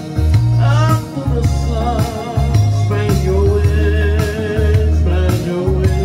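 Man singing a slow song over a backing track with a heavy bass line, holding one long note in the middle.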